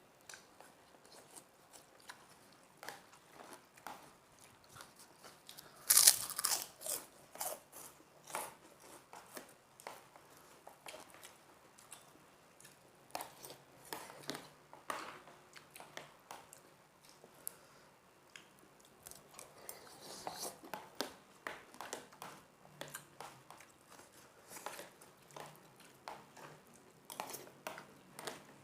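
Close-up eating: crunchy bites and chewing of krupuk crackers with instant noodles, in irregular short crunches, the loudest a burst of crunching about six seconds in.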